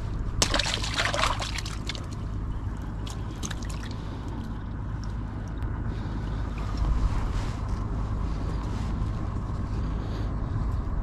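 A freshly caught fish splashing in the water in the bottom of a wooden boat, a burst of splashing about half a second in that lasts about a second. Fainter sloshing and small clicks follow over a low steady rumble.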